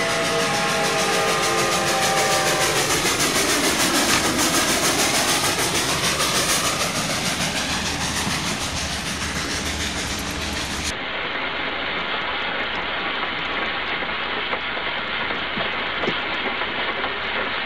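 Model steam train, a 4-6-0 locomotive No. 8 hauling passenger cars, passing close by: its whistle fades out over the first couple of seconds, then the engine rushes past with a sound that dips and rises in pitch, and the wheels click and clack over the rail joints as the cars roll by.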